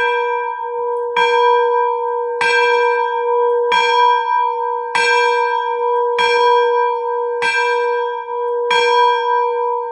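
Restored Pennsylvania Railroad steam locomotive bell, a large brass bell swung in its yoke by a hand wheel, ringing. Eight clapper strikes about one and a quarter seconds apart, each ringing on into the next so that a steady low tone holds between the strikes.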